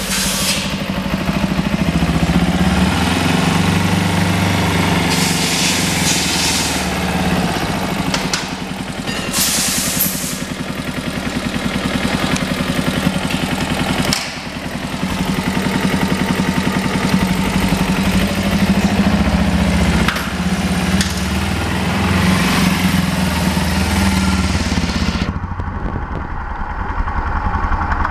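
2009 Kawasaki Ninja 250R's 249 cc parallel-twin engine running steadily, with a few brief dips in level.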